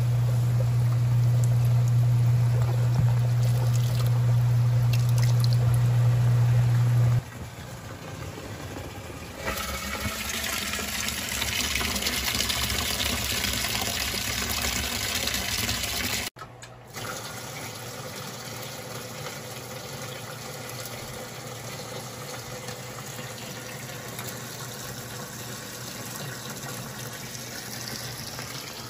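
Water rushing and bubbling through a hydroponic ebb-and-flow system's level controller tank, after a steady low hum for the first seven seconds or so. The rush cuts off suddenly about halfway through and gives way to a quieter, steady watery hiss.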